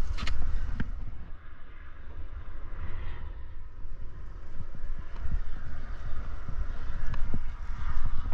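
Wind buffeting the microphone in a steady low rumble, with scattered light clicks and scrapes from climbing gear and hands and shoes moving on granite.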